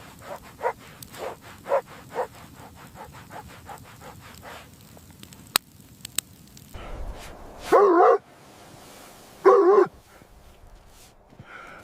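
Two loud, wavering animal calls, each about half a second long and a second and a half apart, after a run of quick soft clicks in the first few seconds.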